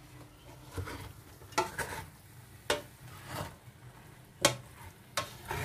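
Wooden spatula stirring and scraping fried rice and chicken around a stainless steel pot, in a series of short strokes at irregular intervals.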